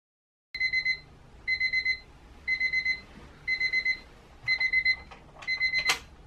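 Bedside analog alarm clock beeping: groups of rapid high electronic beeps about once a second, six times, cut off by a click near the end as a hand presses it off.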